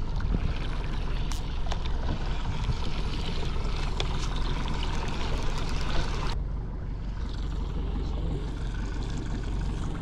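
Motorboat engine running steadily under wind and water noise; about six seconds in the higher hiss drops away suddenly.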